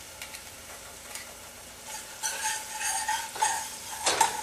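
Butter melting and sizzling with onion and garlic in a stainless steel saucepan, stirred with a wire whisk that clicks against the pan. The sizzle grows louder and more crackly about two seconds in.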